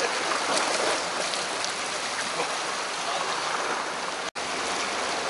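Seawater washing and splashing against shoreline rocks, a steady rush, briefly cutting out about four seconds in.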